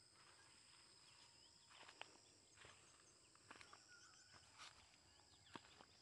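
Near silence: faint field ambience with a thin, steady high whine and a few soft footstep crunches on vines and dry soil, roughly one a second.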